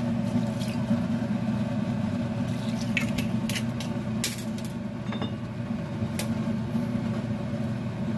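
Steady low mechanical hum of kitchen background noise, with a few short sharp clinks of kitchenware near the middle as seasonings go into a stainless steel pot of chicken pieces.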